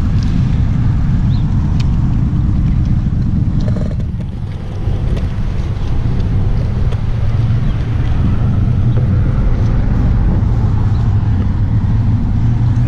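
Wind buffeting an action camera's microphone: a loud, steady low rumble that dips briefly about four seconds in.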